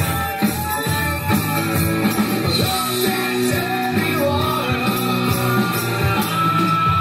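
Rock music with singing over a steady beat.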